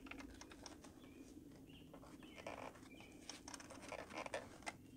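Faint, scattered clicks and light knocks from a car's fuel rail and injectors being rocked by hand as someone works stuck injectors loose.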